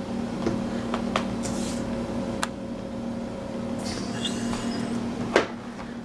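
Scattered light clicks and taps of hands handling a laptop's plastic case at the hard-drive bay, with one sharper click near the end, over a steady low hum.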